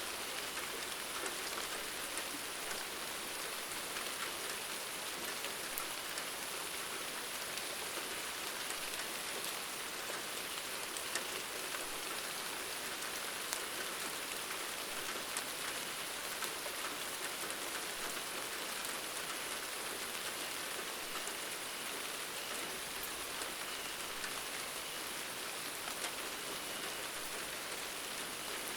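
Steady rain falling on a surface, a continuous hiss dotted with many small drop ticks.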